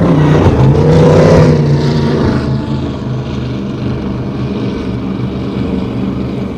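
Cigarette Gladiator 36 speedboat's engines running at high speed, their note wavering and swelling about a second in, then holding steady and slowly fading as the boat draws away.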